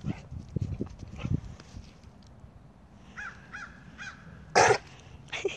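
Animal sounds: three short cawing calls in quick succession about three seconds in, then a loud, harsh hacking noise near the end, which the owner takes for a dog choking on a rock.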